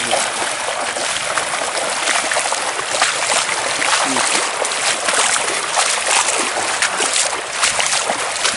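Shallow river water splashing: a steady rush of water with many quick, irregular splashes as a cast net holding a good catch of fish is handled in the river.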